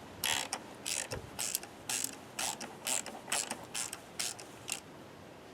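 Ratchet wrench clicking in short bursts, roughly two a second and about ten in all, as it turns a thread repair tap recutting a stripped spark plug hole in an aluminium cylinder head; the clicking stops near the end.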